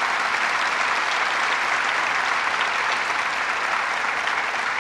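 Audience applauding, a dense steady clapping throughout.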